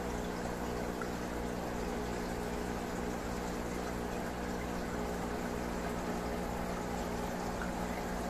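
Aquarium filtration and aeration running: a steady hiss of bubbling, moving water with a steady low hum underneath.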